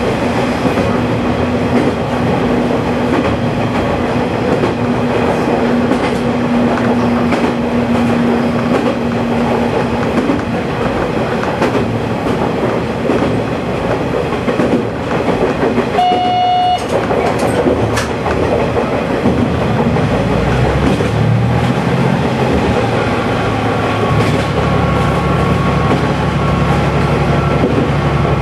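KiHa 120 diesel railcar running along the track, heard from the cab: steady engine and wheel noise with clickety-clack over the rail joints. Just past halfway a short high tone sounds, and near the end a steady low engine note comes up.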